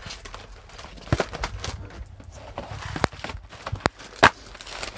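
Cardboard boxes being handled and set down on a hard floor: a few scattered knocks and taps, the loudest a sharp one about four seconds in.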